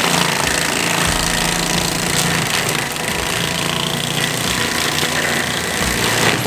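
Forestry mulcher on a Cat compact track loader running hard, its spinning drum grinding up a felled pine tree: a loud, steady mechanical racket with a low engine hum underneath.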